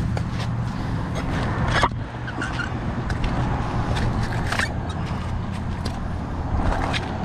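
Steady low rumble of road traffic, with a few sharp clinks and scrapes of a neodymium fishing magnet and the rusty scrap stuck to it on concrete; the loudest clink comes about two seconds in.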